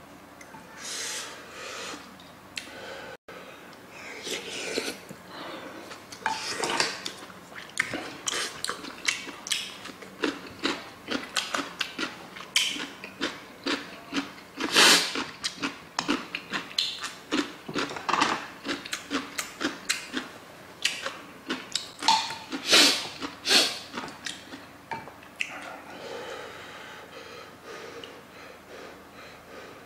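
Close-miked eating of sundae gukbap, a hot blood-sausage soup: many short wet chewing smacks and a few louder slurps and breaths, with a wooden spoon and chopsticks clicking against the earthenware pot.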